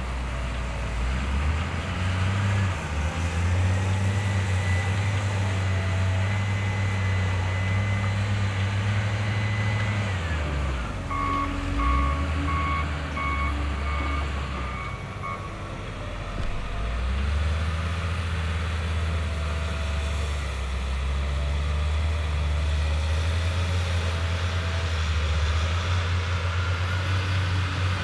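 John Deere 624J wheel loader's diesel engine working under load, its revs rising and falling as it digs into a dirt pile and carries the bucket. A reversing alarm beeps in an even run for about four seconds near the middle.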